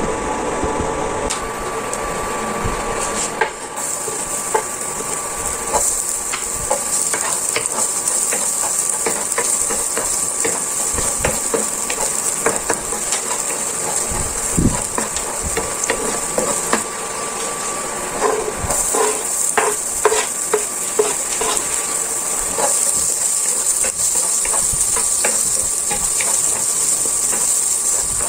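Minced garlic and chopped onion sizzling in hot oil in a nonstick frying pan, with the scrapes and taps of a wooden spatula stirring them. The hissing sizzle starts a few seconds in and stays steady, and the spatula clicks come thickest about two-thirds of the way through.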